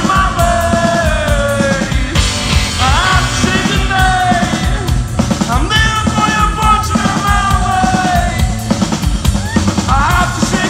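Live rock band playing loudly: a male singer's voice, strained and held, over electric guitars and a driving drum kit beat.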